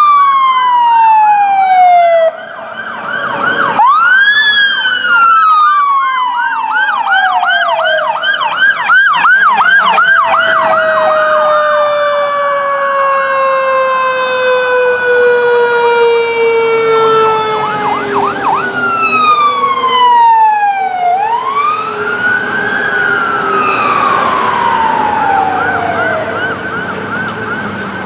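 Sirens of several responding emergency vehicles, including ambulances and a fire engine, sounding loudly together as overlapping wails that rise and fall. A fast yelp comes in about eight seconds in, and one long tone slides slowly down in pitch.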